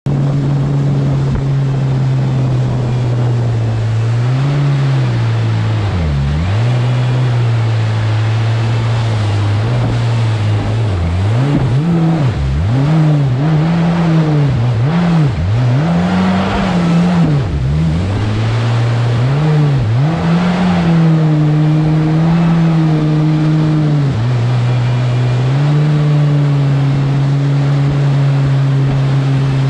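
Engine of a 3.5 m jet boat running under way over rushing river water. It holds a steady pitch, then dips and climbs several times in quick succession midway as the throttle is worked, and settles at higher revs near the end.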